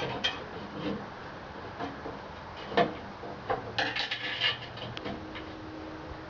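Light clatter and clicks of metal parts and tools being handled while fitting a wall heater. There is one sharp click a little under three seconds in and a quick run of clicks about a second later.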